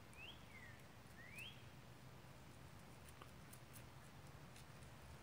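Near silence with two faint, high chirps near the start, about a second apart: the first rises then falls, the second rises.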